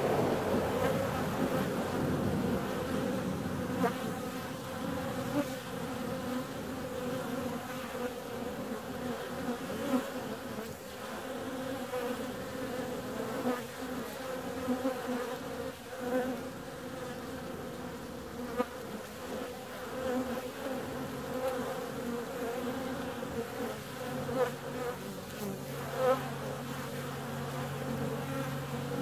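Honeybees buzzing in flight at a hive entrance: a dense hum of many overlapping wingbeats, with brief louder buzzes now and then as single bees pass close. A steady low hum joins in about two-thirds of the way through.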